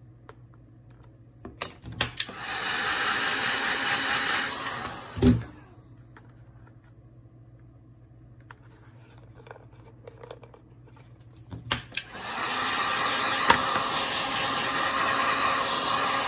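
Electric heat gun blowing in two runs: a short one of about two seconds, and a longer one about ten seconds later. Each starts after a few clicks. A sharp thump comes just after the first run stops.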